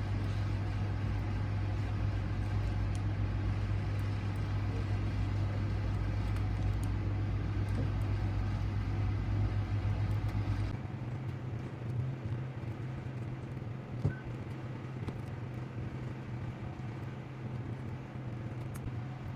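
Steady low mechanical hum. About eleven seconds in it changes to a thinner, slightly quieter hum, and a single sharp click follows a few seconds later.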